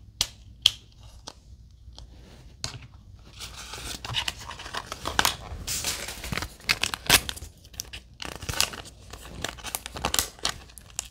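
A few light plastic clicks, then from about three and a half seconds in, paper and foil toy packaging being crinkled and torn open by hand.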